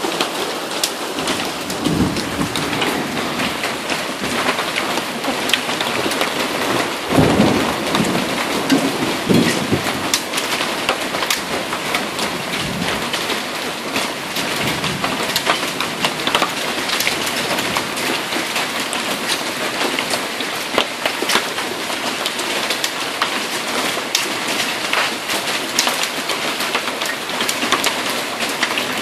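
Hail and heavy rain pelting down: a dense, steady rush with many sharp ticks of hailstones striking. Low rumbles of thunder come about two seconds in and again from about seven to ten seconds in.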